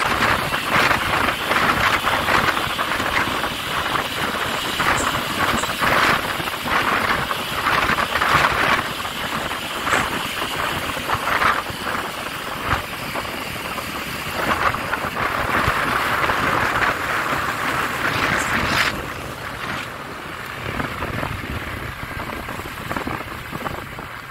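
Rushing wind and road noise from a vehicle travelling at speed behind a cargo truck, buffeting unevenly; it quietens somewhat near the end.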